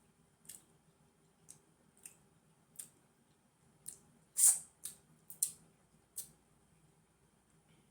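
Close-up eating sounds: about ten short wet clicks and smacks of a mouth chewing food, unevenly spaced, the loudest about four and a half seconds in.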